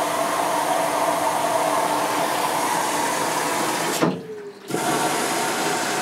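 LG WD-12231TB front-loading washing machine filling with water: a steady rush of mains water coming in through the inlet valve and the detergent dispenser. It breaks off for under a second about four seconds in.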